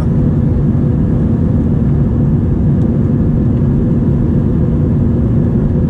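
Cabin noise of an Airbus A320 during its climb after take-off: its two CFM56-5 turbofan engines and the airflow make a loud, steady noise with a steady low hum.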